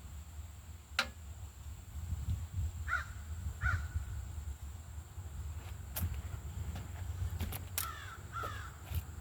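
A bird cawing outside: two harsh caws about three seconds in and two more near eight seconds, over a steady low rumble, with a few sharp clicks in between.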